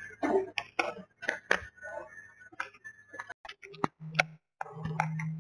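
Irregular clicks and knocks inside a train carriage, with a steady low hum setting in about four seconds in.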